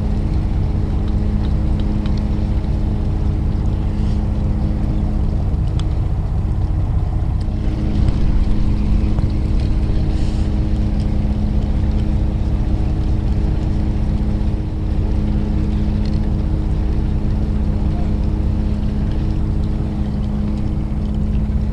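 Fishing boat's engine running steadily, a continuous low hum with a steady tone; its tone changes briefly about seven seconds in.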